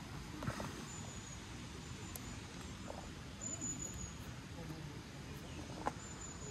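Quiet outdoor background with short, high insect chirps recurring every second or two and faint distant talking, plus one light click near the end.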